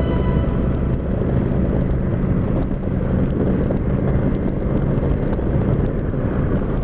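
Motorcycle engine running steadily under a constant rushing haze of wind and road noise.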